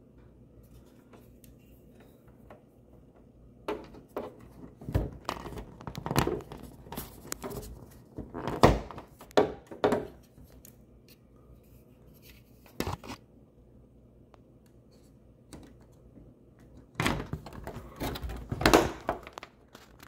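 Plastic panels and covers of a ductless mini split indoor head unit being handled and fitted back into place by hand: irregular knocks, clunks and rattles in two main clusters, with a single knock in between.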